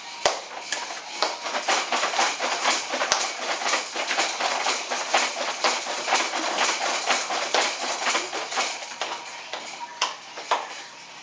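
Plastic baby jumper being bounced hard, its toys and frame rattling and clattering in a rapid, dense stream that thins to a few separate knocks near the end.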